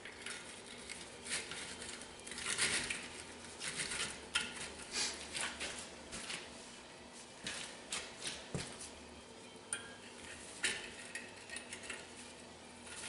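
Irregular metallic clanks, clinks and knocks from work on a Loegering Trailblazer over-the-tire track on a skid steer's tire, as the track and tools are shifted and struck.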